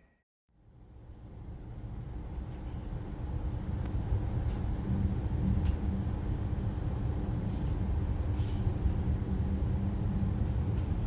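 Regional passenger train running, heard from inside the carriage: a steady low rumble that swells up over the first few seconds, with a faint steady hum and a few faint clicks from the wheels.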